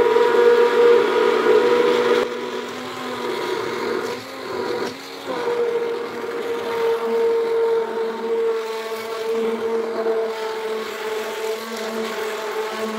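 Electric stick blender running in a plastic bucket, whisking xanthan gum into warm water as the mixture thickens into a gel. It gives a steady motor whine that drops out briefly about four to five seconds in, then carries on.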